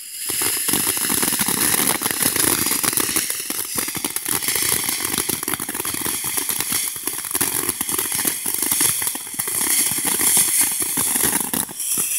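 Tricolor ground fountain firework burning, spraying sparks with a steady loud hiss and dense crackle that starts at once and dips briefly near the end.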